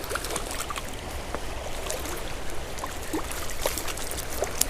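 Shallow creek water running and trickling, with scattered small splashes and ticks throughout.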